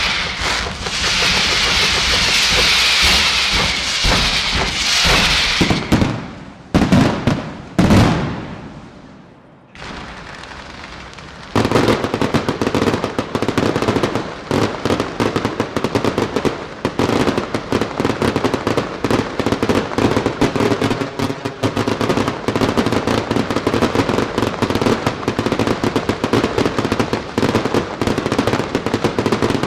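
Fireworks display: sparkling fountains hiss for the first five seconds or so, then two heavy booms go off about seven and eight seconds in. After about twelve seconds comes a dense, unbroken rapid crackling and popping of bursting aerial shells with crackle stars.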